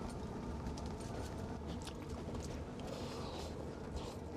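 Strong wind buffeting an ice-fishing hut, a steady low rumble, with scattered small clicks and rustles of handling close by.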